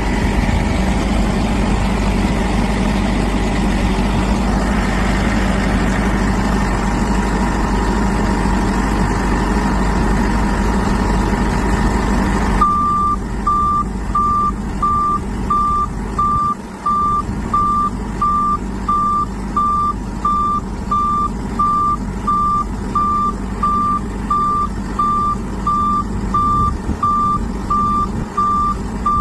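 Heavy truck engine running steadily. About twelve seconds in the sound changes abruptly to a vehicle's reversing alarm beeping at about two beeps a second over the engine.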